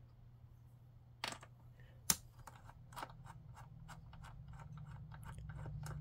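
Small clicks and ticks of a PH2 Phillips screwdriver seating in and turning out screws from a sheet-metal hard drive cage. There is a sharp click about two seconds in, then a run of light, irregular ticks over a faint low hum that grows toward the end.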